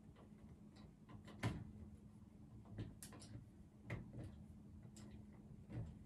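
Faint, scattered taps and clicks, about five spaced irregularly, over a low steady hum.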